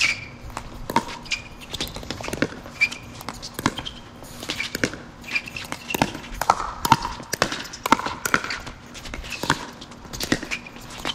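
Pickleball rally: a quick, irregular series of sharp pops from hard paddles striking the plastic ball and the ball bouncing on the court, several a second at times.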